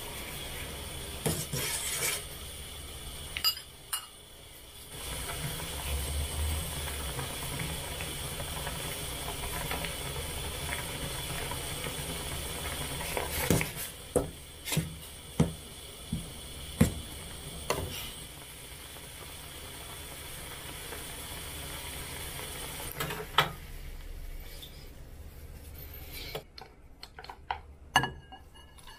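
Pot of instant ramen cooking with a steady hiss, while a utensil clinks against the pot and bowl: a few clinks early on, a run of about six around the middle, and single ones later. The hiss stops near the end.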